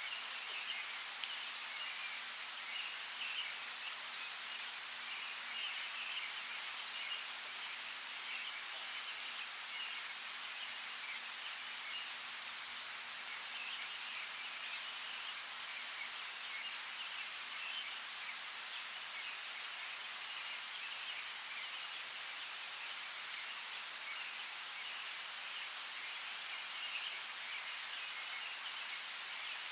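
Steady rain falling, with a few sharper drops and birds chirping.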